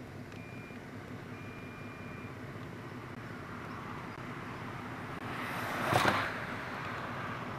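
A car passing close by at speed, its noise swelling to a peak about six seconds in and then fading. Under it runs the steady sound of a narrow-gauge diesel locomotive.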